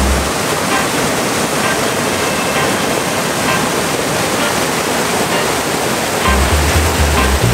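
Small river waterfall rushing steadily, the even sound of falling water. Deep bass notes of background music come in near the end.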